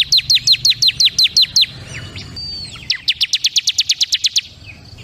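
Bar-winged prinia (ciblek kristal) singing: a loud, fast run of sharp notes that each slide down in pitch, about seven a second, then after a short gap a quicker run of about ten a second.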